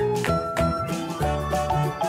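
Instrumental background music with a steady beat, no singing.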